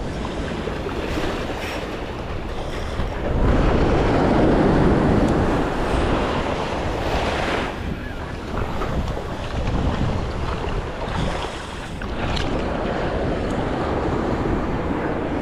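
Ocean surf washing up the beach, with wind on the microphone; a wave rushes in louder a few seconds in.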